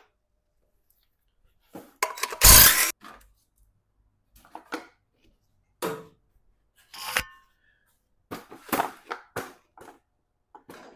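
Scattered clanks and knocks of metal tools and parts being handled, some with a short metallic ring; the loudest, heaviest knock comes about two and a half seconds in, with a cluster of smaller clicks near the end.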